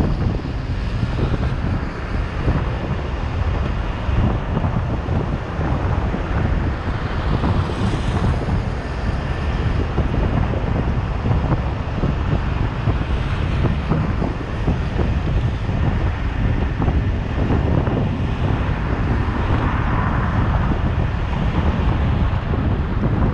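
Wind buffeting the microphone of a camera on a moving car, a steady low rumble over the noise of tyres and passing traffic.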